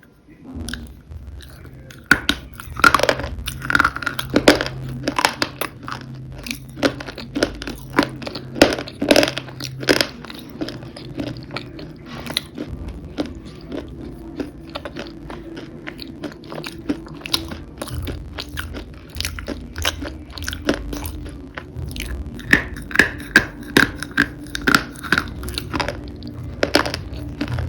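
Crunchy food being bitten and chewed close to the microphone: a dense run of sharp crackling crunches, loudest a couple of seconds in and again near the end.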